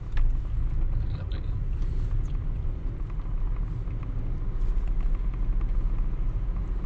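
A car's engine and road noise heard from inside the cabin: a steady low rumble while the car creeps forward in slow traffic, with one short knock just after the start.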